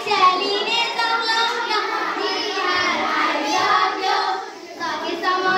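A group of children singing a Nepali Bhailo folk song together, with a brief break about four and a half seconds in.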